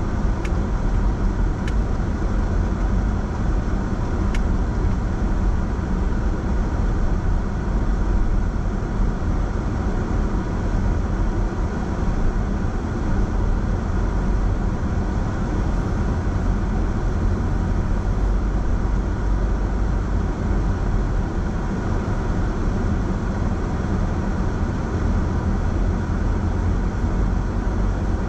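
A car driving along with steady road and engine noise, with a few faint clicks in the first few seconds.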